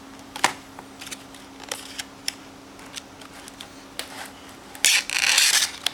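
Utility knife cutting the tape on a case's packaging: scattered small clicks and taps of blade and plastic, then a louder scraping rip lasting about a second near the end.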